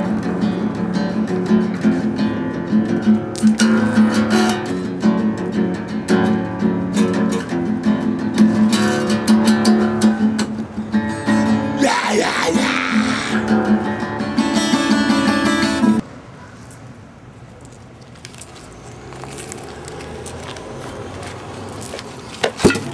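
Acoustic guitar strummed, with a man singing along. About two-thirds of the way through, the music cuts off abruptly and only quiet, even background noise remains.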